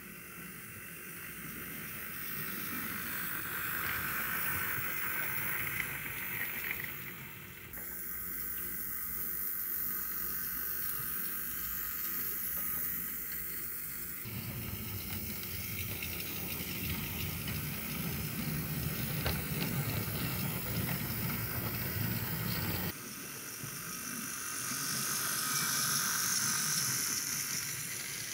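A Bachmann OO-gauge Class 08 diesel shunter model running along sectional track: a steady whirr and rumble of the small locomotive on the rails. The sound changes abruptly a few times where shots are cut together.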